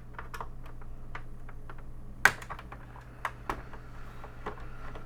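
Scattered light clicks and taps of small hand tools being handled, with one sharper click about two seconds in.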